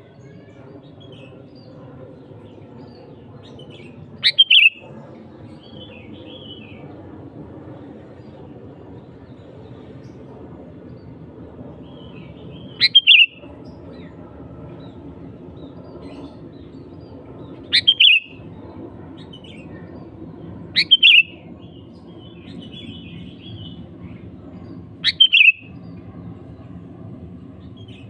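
Sooty-headed bulbul calling: five short, loud, sharp calls spaced several seconds apart, each a quick double burst, with faint chirps between them.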